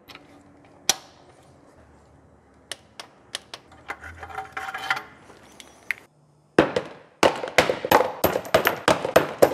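Tools clicking now and then while spark plugs are worked on in the engine bay, then, from about two-thirds in, a rapid run of sharp clacks and clatter as old spark plugs are dropped one after another into a cardboard box.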